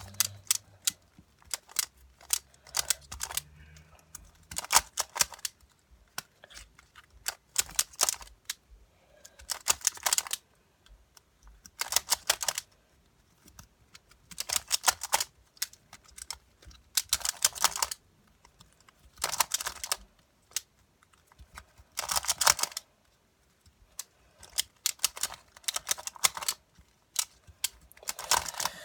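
Plastic twisty puzzle being turned fast in a timed speed-solve: quick runs of clacking layer turns in short bursts, separated by brief pauses.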